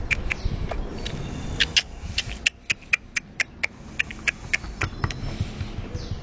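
An animal, being scratched on the belly by hand, making runs of short, sharp clicks, about five a second, with a pause of about a second near the start.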